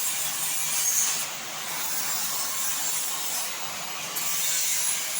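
CNC cutting machine working through sheet material, a steady high-pitched hissing, rasping cutting noise.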